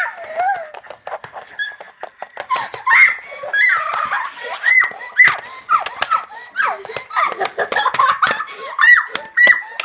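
A child laughing in a high-pitched voice, in many short repeated bursts.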